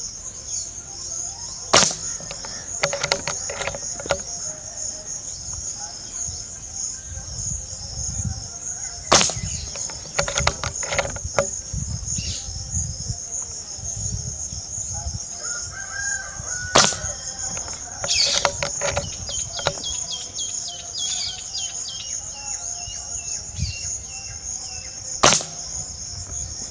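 Four shots from a Diana Stormrider Gen3 PCP air rifle firing .177 slugs, each a sharp crack, spaced about eight seconds apart, with lighter clicks after the shots. Insects buzz steadily in the background.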